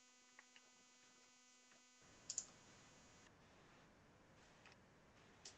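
Near silence, broken by a quick pair of faint clicks a little over two seconds in.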